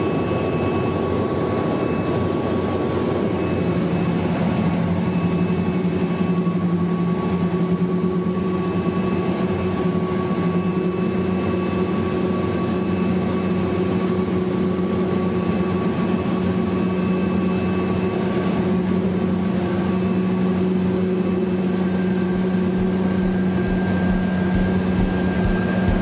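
Pilatus PC-7's Pratt & Whitney PT6A turboprop engine and propeller droning steadily in cruise, heard from inside the cockpit, with several steady whining tones over the drone. A higher tone joins about three-quarters of the way through.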